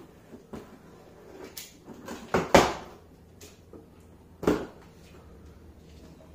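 Cardboard shipping box being opened with a small knife and its flaps pulled back: a few short, sharp scrapes and rustles of cardboard, the loudest about two and a half seconds in and another about four and a half seconds in.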